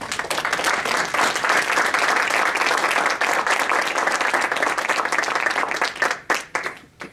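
Audience applauding: a dense, steady round of clapping that thins out about six seconds in to a few last separate claps and then stops.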